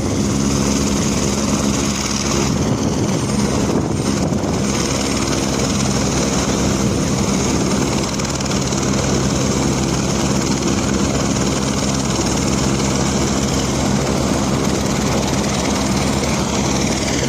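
Helicopter running close by: a loud, steady engine and rotor drone, with a higher whine that dips in pitch near the end.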